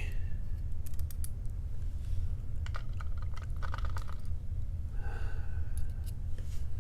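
Small scattered metallic clicks and taps of tweezers, pins and springs being fitted back into a padlock's pin chambers, clustered about three seconds in. They sit over a steady low hum.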